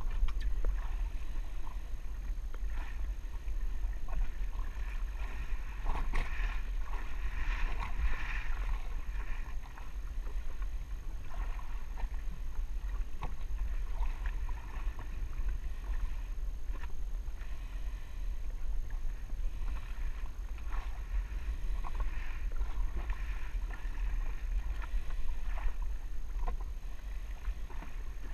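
Water lapping and slapping against the hull of a jet ski drifting on a choppy sea, with many small splashes and knocks over a steady low rumble.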